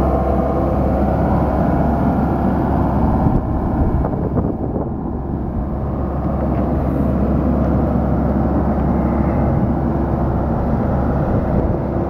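Komatsu PC78MR-6 compact excavator's diesel engine running under load as the boom, bucket and upper structure move, a steady machine drone that drops a little about four seconds in and comes back up about two seconds later.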